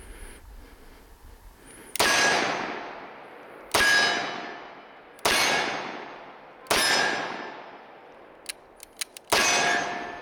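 Five slow-fire .357 Magnum shots from a Smith & Wesson 586 L-Comp revolver, about one every second and a half with a longer pause before the last, each with a long ringing decay. A few faint clicks come just before the fifth shot.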